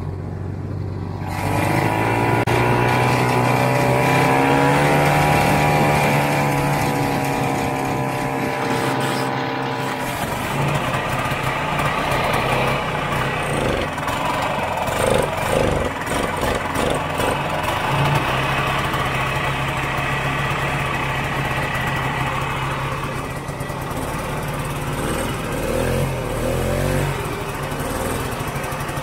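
Vintage Ski-Doo snowmobile's two-stroke engine running at a steady speed under way. About ten seconds in it drops to a lower, uneven running note, with a few short surges as the throttle is blipped, then it moves off slowly near the end.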